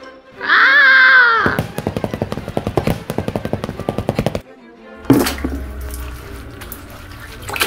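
Cartoon Foley effects: a loud, wavering wail-like tone, then a rapid run of fast even pulses for about three seconds. After a short pause comes a sudden hit, followed by a cloth scrubbing against a wall.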